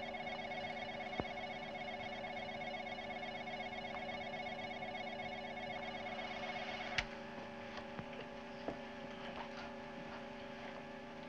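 Electronic laboratory equipment humming with several steady tones and a rapid pulsing beep in the higher tones. A sharp click about seven seconds in, after which the higher tones drop out and only the lower hum remains.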